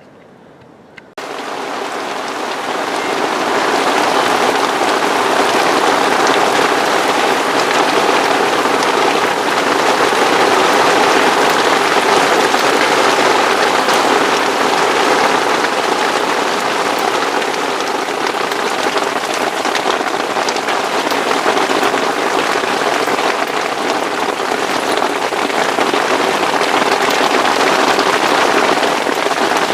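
Heavy hail and rain pelting down on a fishing bivvy, a steady dense rush of countless small impacts. It cuts in suddenly about a second in and swells over the next few seconds before holding steady.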